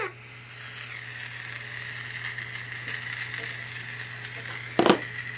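CO2 gas hissing steadily out of an airsoft 1911 replica's gas magazine as the cartridge is pierced: the magazine is leaking badly past its seal. A single sharp click near the end.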